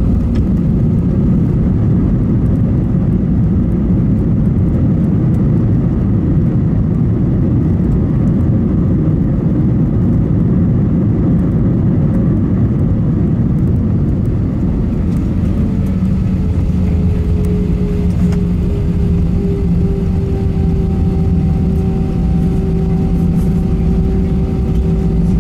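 Airliner cabin noise during the landing rollout of an Airbus A320, heard over the wing: a loud, steady rumble of engines and wheels on the runway as the jet decelerates with its spoilers up. About halfway through, steady engine whine tones come through the rumble as the aircraft slows toward taxi speed.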